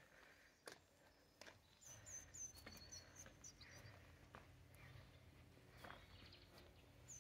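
Near silence with faint birdsong: short high chirps in quick runs about two seconds in and again near the end, over a low hum and a few soft clicks.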